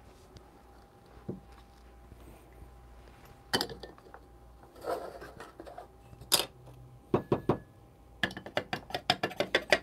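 A couple of sharp metal clinks as a steel dosing funnel is set on an espresso portafilter. Near the end comes a quick run of taps: the grinder's clear grounds container knocked against the funnel to shake out the ground coffee.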